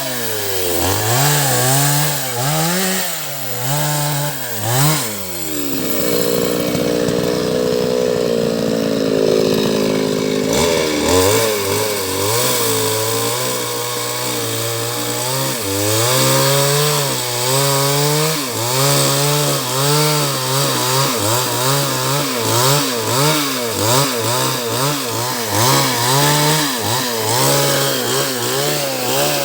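Two-stroke chainsaw felling a coconut palm, its engine revving up and down over and over, with a steadier stretch of several seconds in the first half as it bites into the trunk. The playback is sped up, so the revs rise and fall faster than in real time.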